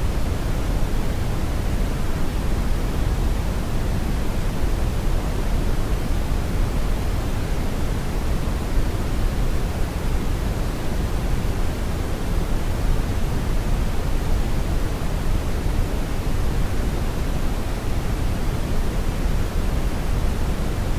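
Steady brown noise: an even, deep rushing hiss with most of its weight in the low end, unchanging throughout.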